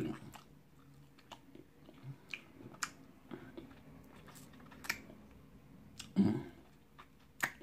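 Open-mouthed chewing and lip-smacking on a baked chicken drumstick, with scattered short wet clicks of the mouth and one louder mouth sound about six seconds in.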